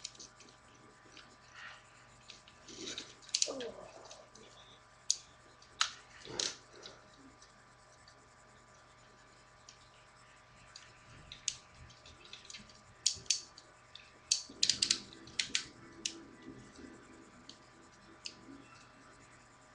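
Plastic action figure being handled and posed, giving scattered clicks and rattles from its joints and parts. The clicks come in louder clusters a few seconds in and again about two-thirds of the way through.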